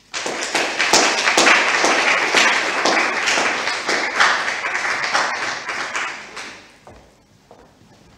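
A small audience applauding, the clapping starting all at once and fading out after about six and a half seconds.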